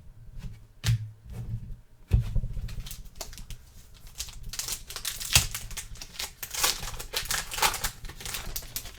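Trading-card pack wrapper crinkling as it is opened, with clicks and taps of cards being handled; the crackling is densest in the second half.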